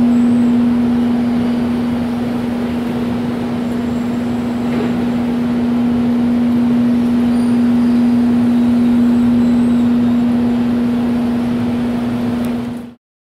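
Steady mechanical hum: one constant tone over an even rushing noise, which cuts off abruptly near the end.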